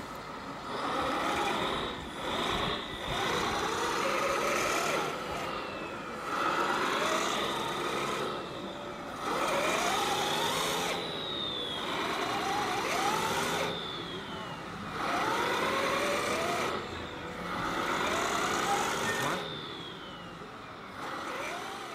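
Radio-controlled tipper truck driving over gravel in about seven bursts of throttle, its drive rising and falling in pitch with each burst.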